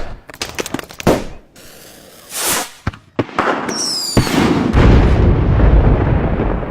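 A rapid run of sharp cracks and bangs, then a rushing noise and a brief whistle, followed by a heavy boom that keeps rumbling to the end.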